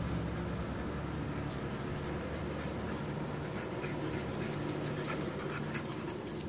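French bulldog puppies and an adult French bulldog at play, breathing and scuffling close by, with many small high clicks that grow busier in the second half. A steady low hum runs underneath.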